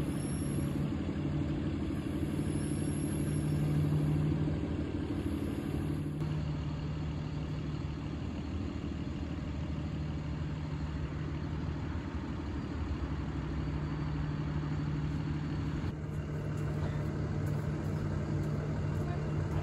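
Boom truck's engine idling steadily with a low, even hum; the background changes slightly about six and again about sixteen seconds in.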